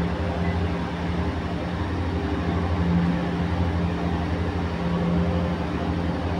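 A steady low machine hum over an even hiss, unchanging throughout.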